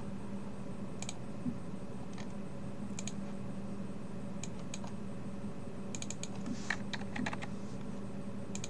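Computer keyboard keystrokes and mouse clicks: scattered single clicks, then short clusters of keystrokes a little past the middle and again near the end, over a steady low hum.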